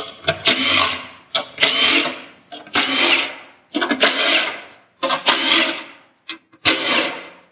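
Power drill on a slow setting spinning out 10 mm bolts, six short runs of about a second each with brief pauses between.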